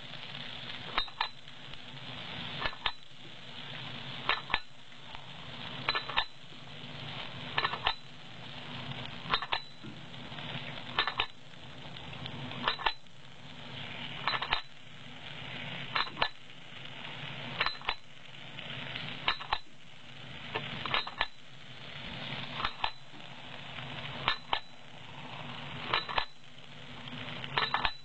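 Automatic paddu (rice appe) making machine running through its cycle: a sharp metal clink, often a quick double clink, about every 1.7 seconds, with a steady hiss in between.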